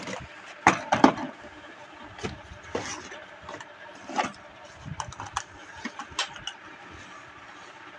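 Dishes from a dinner set knocking and clinking as they are handled, picked up and set down: scattered light knocks, the loudest two about a second in.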